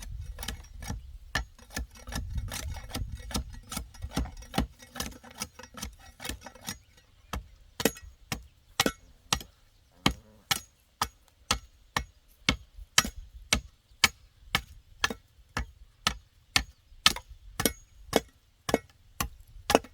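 A hand tool strikes wood in a long run of sharp blows, about two a second. For the first few seconds the blows come denser and rougher, with a low rumble under them.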